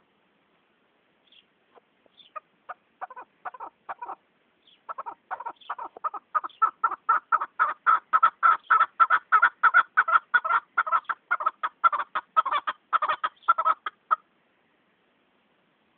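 Chukar partridge calling: a long series of short notes, scattered at first, then quickening and growing louder about five seconds in to an even run of about five notes a second, which stops abruptly near the end.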